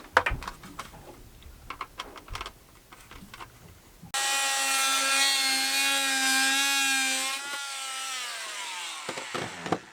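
Clicks and rustles of handling, then a small electric motor starts suddenly with a steady whine, runs for about three seconds and winds down, its pitch falling as it stops.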